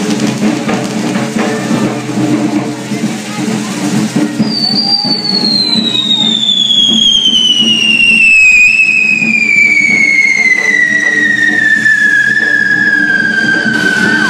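Correfoc fireworks spraying sparks, with a steady low hum underneath. About four seconds in, a whistling firework starts one long shrill tone that slides slowly down in pitch and is still sounding at the end.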